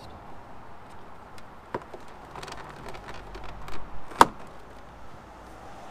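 Plastic armrest trim being pressed into a first-generation Mini door card: a few light plastic clicks and rubs, then one sharp click about four seconds in as it clips into place.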